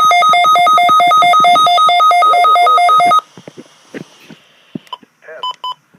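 Weather radio receiver's alert alarm, set off by the weekly test tone: rapid electronic beeping that switches back and forth between two pitches, cutting off suddenly about three seconds in, followed by faint clicks.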